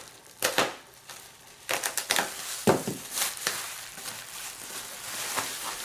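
Parcel packaging being handled and torn open: irregular sharp crinkling and crunching, in a dozen or so uneven crackles.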